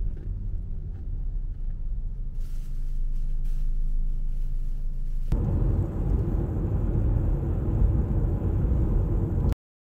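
Low, steady rumble of a car's cabin with a few faint crinkles of a plastic wrapper. About five seconds in it gives way to louder road noise from the car driving along, which cuts off suddenly near the end.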